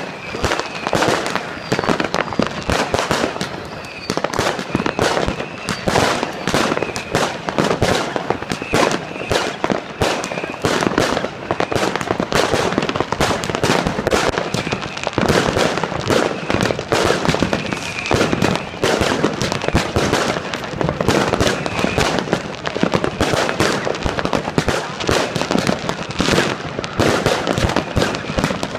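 Consumer fireworks going off in rapid succession: a dense, unbroken run of bangs and crackling as comets rise and shells burst overhead.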